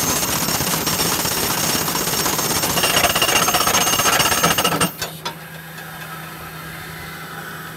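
Boom-mounted hydraulic ground-rod driver hammering rapidly and continuously as it drives a sectional ground rod down into the soil. The hammering cuts off suddenly about five seconds in, leaving the truck's engine idling steadily.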